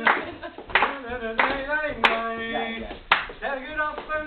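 Hand-clapping in a steady beat, about one and a half claps a second, over singing voices, keeping time for a Turkish folk dance.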